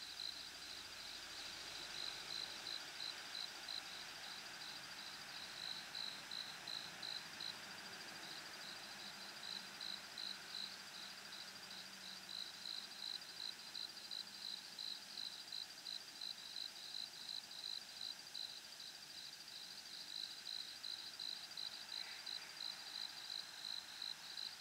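An insect chirping steadily, a long run of short high chirps at about three a second, over a faint steady hiss.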